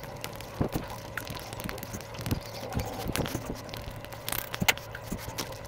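Close-miked chewing of a crisp pani puri: irregular crunches and wet mouth clicks. Near the end, fingers handle the next puri shell, with one sharp crack the loudest sound.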